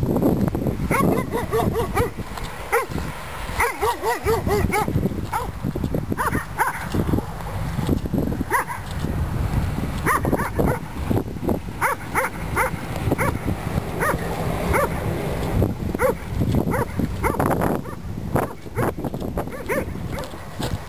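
Stray dogs barking over and over in short barks.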